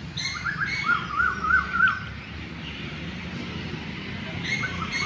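A bird calling in two bouts of quick, repeated rising-and-falling notes, one over the first two seconds and another near the end, over a low steady rumble.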